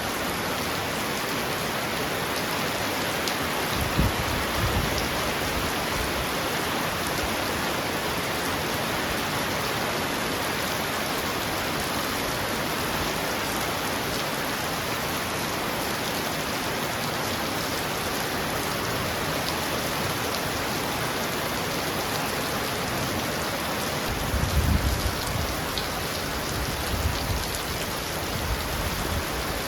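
Heavy rain pounding steadily on a roof. Brief low rumbles of thunder come about four seconds in and again several times near the end.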